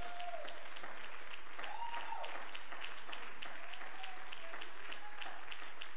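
Church congregation clapping in a steady rhythm, about three claps a second. A few voices call out over the clapping.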